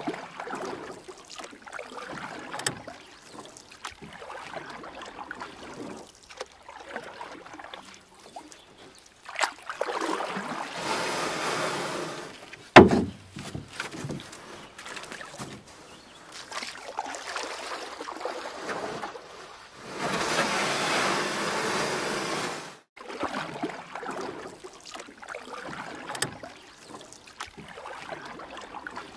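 Kayak paddle strokes splashing and dripping in the water in uneven swells. There is one sharp knock a little under halfway through.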